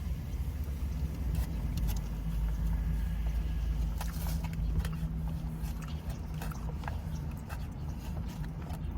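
Steady low rumble of a car's running engine heard inside the cabin, with scattered small clicks and crunches of someone eating and chewing.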